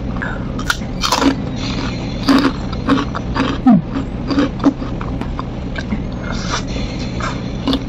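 Close-up chewing and crunching of crisp fried food eaten by hand, in irregular crackly bites, over a steady low hum.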